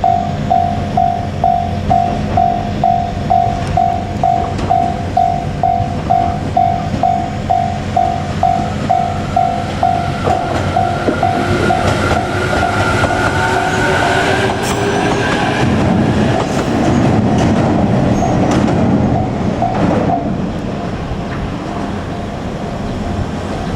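Japanese level-crossing warning bell ringing about twice a second. Then a JR Kyushu 817 series electric train passes over the crossing: a rising whine, rushing wheel noise and a few wheel clicks over the rail joints, with the bell still sounding faintly behind it.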